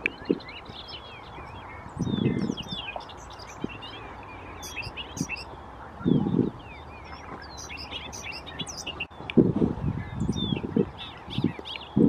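Bobolinks singing: runs of quick, jumbled high notes, busiest a few seconds in and again near the end. Three short bursts of low rumble, the loudest sounds, come about two, six and ten seconds in.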